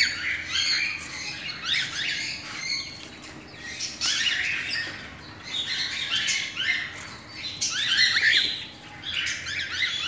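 Cockatiels in an aviary cage calling: many short, overlapping chirps and squawks coming in runs, with brief lulls about three, five and nine seconds in.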